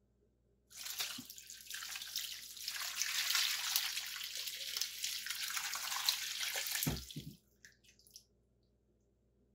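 A stream of brown liquid poured over beef short ribs in an enamel roasting pan, splashing onto the meat and pan for about six seconds. It ends with a couple of low knocks near the end.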